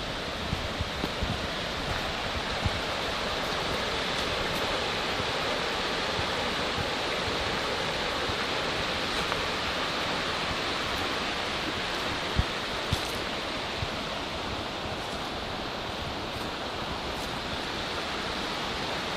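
Korbu waterfall: falling water making a steady, even rush, with a few brief low thumps.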